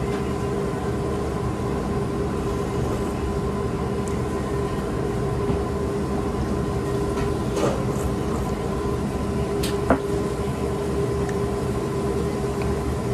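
Steady droning hum of a ramen shop's room noise, with a few faint clicks from a spoon and chopsticks on the ceramic bowl; the sharpest click comes about ten seconds in.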